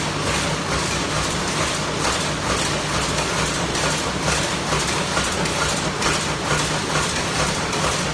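Steady, loud mechanical din of screw-making machines running in production, a dense rapid clatter over a continuous low hum.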